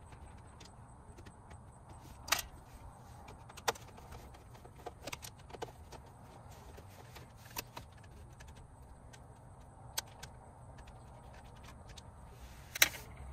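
Scattered clicks and small metallic clinks of a screwdriver working Torx screws out of car dashboard trim, about seven in all, the loudest near the end, over a faint low hum.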